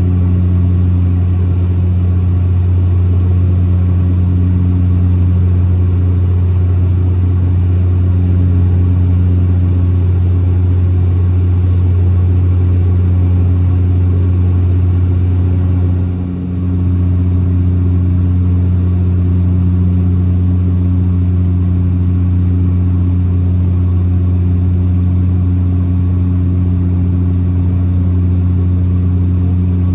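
Cabin drone of a Bombardier Dash 8 Q400's PW150A turboprop and six-blade propeller, heard from a window seat beside the engine: a loud, steady low hum with a few higher steady tones above it. It dips briefly about halfway through.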